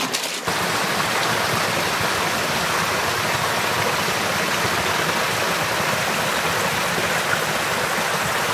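Small waterfall pouring into a rocky pool: a steady rush of splashing water that starts abruptly about half a second in.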